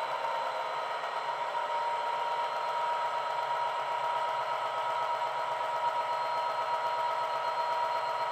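Sound decoder in a Bachmann Class 66 model locomotive playing a recorded Class 66 diesel engine running steadily at idle through a small ESU speaker, a constant hum with a few held tones and no deep bass.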